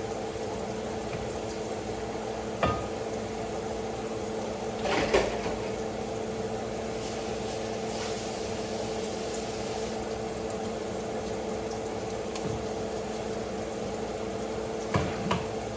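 Steady electric hum of a running kitchen appliance, with a few sharp knocks of cookware or utensils: one about three seconds in, a short clatter about five seconds in, and two more near the end.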